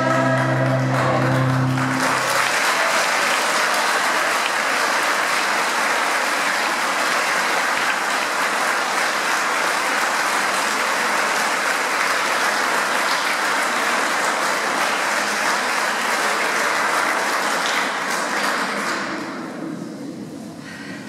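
A choir's final held chord cuts off about two seconds in, and the audience breaks into steady applause. The applause dies away near the end.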